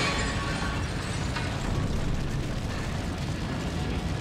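Fire burning: a steady noise with a low rumble underneath.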